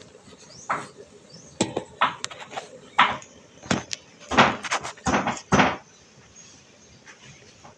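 A string of sharp knocks and clatters, about eight in six seconds, as kitchen things are handled and a bottle of soy sauce is set down on the counter beside the stove.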